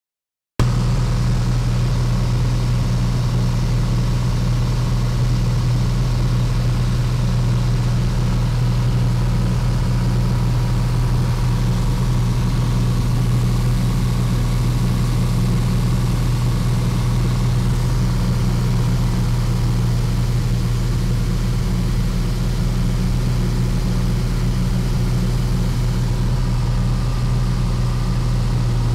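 Piper Saratoga's six-cylinder piston engine and propeller droning steadily at cruise power, heard from inside the cockpit. The drone cuts in abruptly about half a second in and holds level throughout, with a strong low hum.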